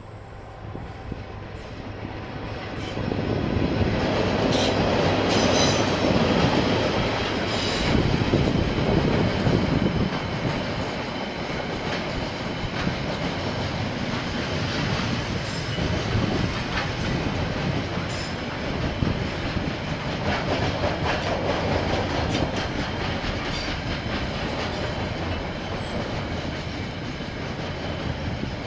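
KiwiRail train passing on the line, its wheels clicking over the rails. The sound builds over the first few seconds, is loudest from about four to ten seconds in, then runs on steadily with scattered clicks.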